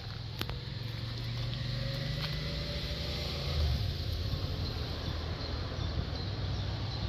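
Yamaha Raptor 700 quad's single-cylinder engine running steadily, a low rumble that swells slightly a little past halfway.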